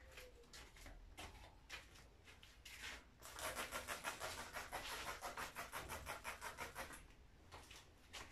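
Rapid back-and-forth rubbing or scrubbing on the surface of a painted panel, about eight strokes a second for roughly four seconds, starting about three seconds in. A few separate scrapes come before it.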